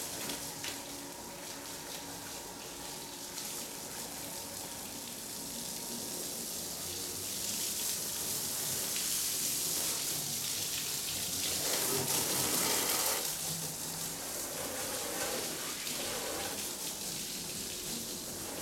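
Garden hose spraying water onto a car, the stream hissing and splashing over the body and windows. It grows louder a little past the middle.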